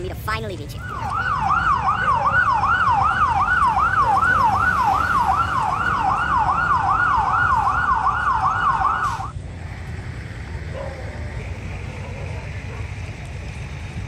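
Fire engine siren on a fast yelp: quick rising-and-falling pitch sweeps, about two and a half a second, that cut off abruptly a little after nine seconds in. A lower steady noise follows.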